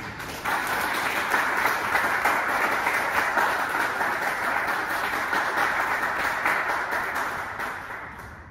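Applause, the panel at the table clapping with the room; it swells about half a second in and dies away near the end.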